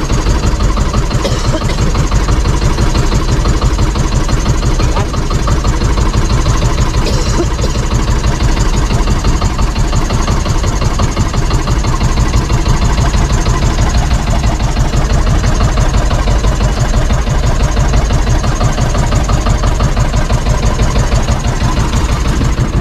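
Small engine of a motorized outrigger boat running steadily under way, a fast, even pulse with no let-up.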